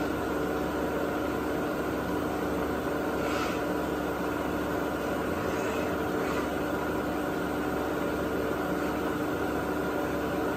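Tree Journeyman 310 CNC vertical toolroom mill running, a steady hum and whine of several held tones from its motors. Brief faint swishes come through about three and six seconds in.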